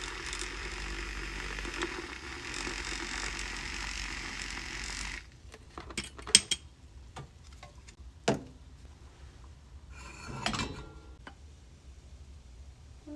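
Small electric milk frother whirring steadily in milk, then switched off suddenly about five seconds in. Afterwards come a few sharp clinks and knocks of cup and utensils.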